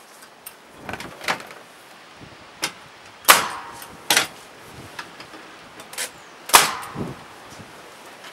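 Pneumatic nail gun firing nails into timber: about eight sharp shots at irregular intervals, the two loudest about a third and three quarters of the way through.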